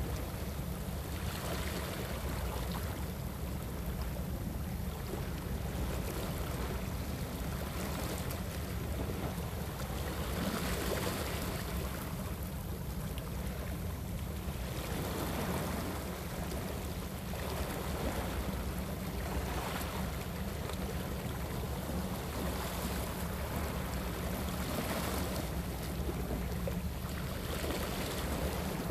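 Sea water washing against shore rocks, swelling and easing every several seconds, over a steady low rumble of wind on the microphone.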